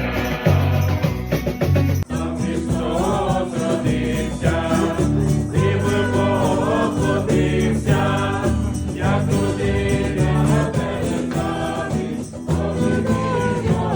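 Youth choir singing a Christmas carol over instrumental accompaniment, with an abrupt cut in the sound about two seconds in.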